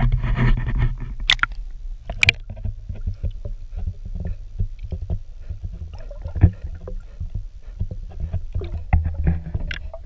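An action camera plunging into the water with a splash. Then the muffled underwater sound of the river follows: a low rumble with scattered clicks and crackles. Near the end comes the crunching of a Florida manatee grazing on plants.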